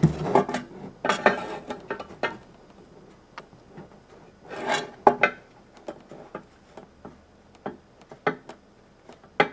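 A square rocking and tapping on the Bosch RA1181 router table's top as it pivots over a low spot by the grooves, a sign the tabletop is warped and not flat. A quick run of taps at the start, a short scrape just before the middle, then single taps a second or so apart.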